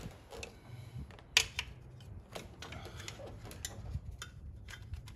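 Metal parts and tools being handled in an engine bay: scattered, irregular light clicks and clinks, with one sharper knock about one and a half seconds in.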